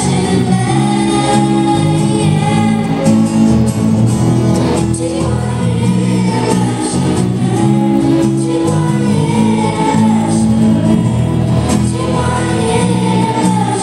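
A small group of girls singing a Christian song together into microphones, accompanied by an acoustic guitar.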